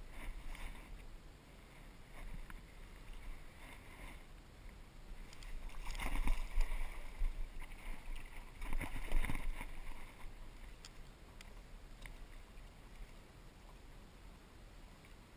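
Water sloshing and a paddle stroking through the water around a stand-up paddleboard, with two louder splashy stretches about six and nine seconds in.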